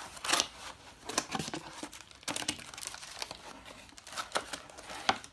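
Packaging crinkling and tearing in irregular crackles and rustles as the saw's stock blade is unwrapped by hand.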